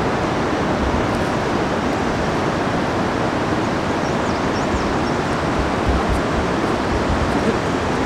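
Steady rushing noise, with gusts of wind buffeting the microphone.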